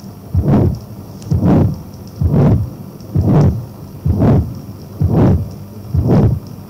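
Recorded heart sounds over the pulmonic area with a systolic ejection murmur: a crescendo-decrescendo whoosh with each beat, seven beats a little under a second apart. Typical of pulmonary stenosis, or relative pulmonary stenosis in an atrial septal defect or in tetralogy of Fallot.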